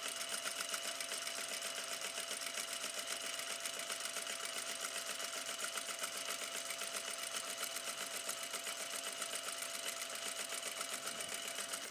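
Sewing machine running at a steady pace, its needle mechanism making a fast, even ticking as it stitches along a curved line on fabric.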